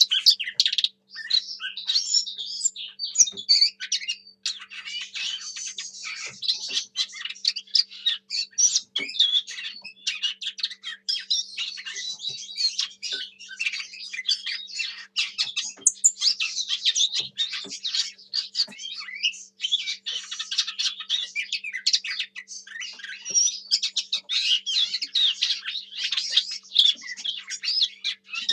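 Lesser whitethroat (Sylvia curruca) singing a fast, continuous warbling song of quick varied notes, broken only by a few short pauses.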